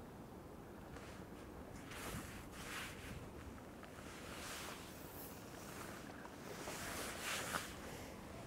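Quiet outdoor wind noise: a steady low rumble on the microphone with a few soft rustling swishes of gusts through lakeside bushes.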